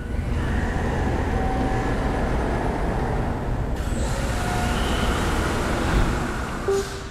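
SABERjet XP CNC bridge sawjet starting its cycle, with the saw blade running and cutting into a stone countertop slab as a loud, steady machine noise. A short electronic beep comes near the end.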